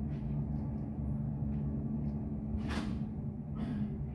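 Steady low rumbling hum of distant machinery or traffic, with two brief rushing noises in the second half.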